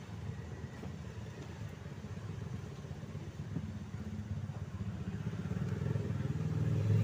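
Road traffic: a motor vehicle's engine running steadily, getting louder toward the end as it comes closer.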